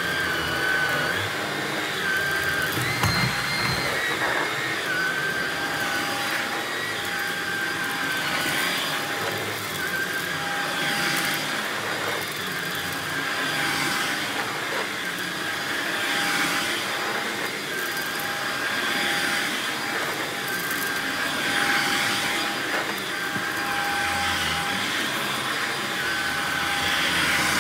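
Stick vacuum running on a shag rug, its motor pitch shifting slightly with each back-and-forth stroke. Scattered small crackles and rattles come from grains of rice being sucked up through the floor head.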